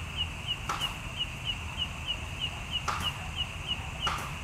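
A small animal chirping steadily: short high chirps repeating about three times a second, with a few faint clicks between them.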